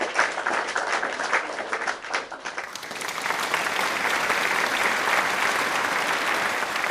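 Applause: many people clapping, with separate claps audible at first. Nearly three seconds in it turns into a denser, steady wash of clapping.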